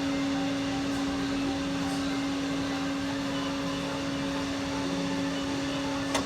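Key Master arcade prize machine humming steadily while the player holds the button and the key travels toward the prize slots. The hum cuts off with a click near the end as the button is let go.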